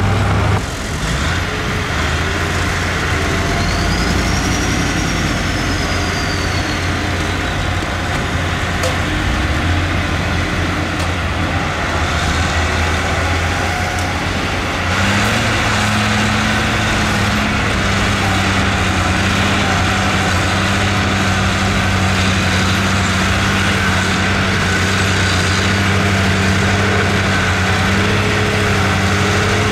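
Heavy diesel engines of earthmoving machines running steadily, the engine note growing fuller and louder about halfway through.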